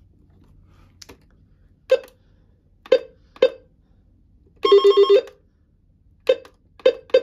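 Alert Works NOAA weather alert radio giving short electronic beeps as its menu buttons are pressed, about six in all, with one longer pulsing beep lasting about half a second just past the middle.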